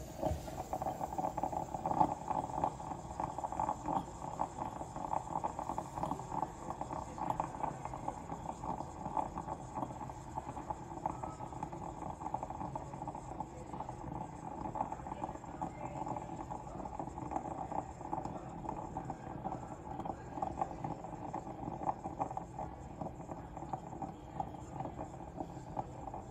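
Ariete electric moka pot brewing, with coffee pushing up into the upper chamber as a steady, irregular bubbling and sputtering of rapid small pops.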